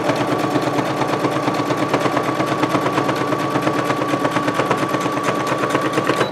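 Electric sewing machine stitching a seam through layers of canvas fabric, a rapid, even needle clatter over a steady motor whine. It stops abruptly at the very end.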